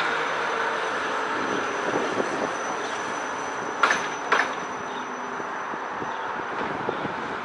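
Electric tram running past at street level: a steady rolling rumble with a faint high whine, and two sharp clacks about half a second apart near the middle.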